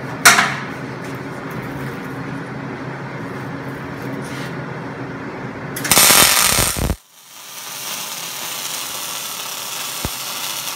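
A steady hum with a sharp knock about a third of a second in, then a wire-feed welder's arc starts near six seconds with a loud crackle. After a sudden cut the welding goes on as a steady, quieter crackling hiss.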